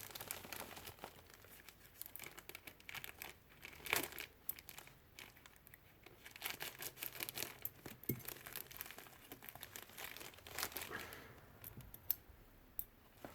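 Shipping packaging being opened by hand: irregular crinkling and tearing, with scattered small crackles and rustles.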